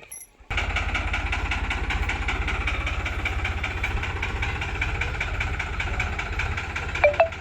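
New Holland tractor's diesel engine running steadily with an even, fast beat. It cuts in suddenly about half a second in. Near the end come a few short, sharp squeaks.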